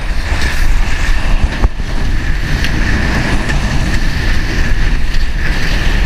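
Strong wind buffeting the microphone of a hand-held action camera while kiteboarding at speed, a loud steady rumble mixed with the rush of the board over choppy water.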